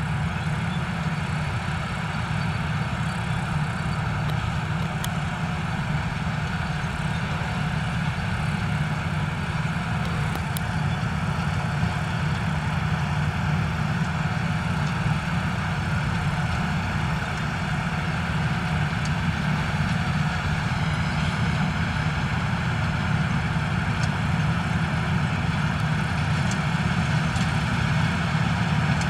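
Don-1500 combine harvester working in the field: a steady, low drone of its diesel engine and threshing machinery, growing slightly louder near the end as it approaches.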